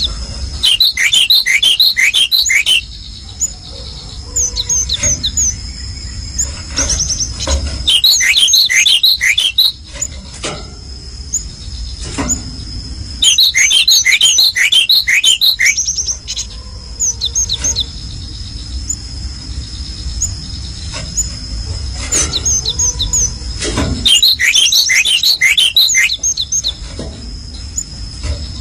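Songbird calling in loud bursts of rapid, sharp high chirps, four bursts a few seconds apart, over a steady high-pitched tone.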